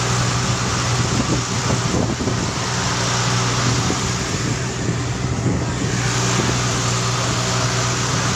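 Engine of a motorized outrigger fishing boat running steadily at a constant pitch under way, with the rush of water and wind over it.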